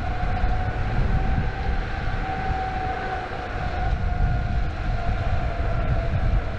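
Electric skateboard's direct-drive hub motors whining steadily while riding, the whine sinking slightly in pitch near the end, over a low rumble.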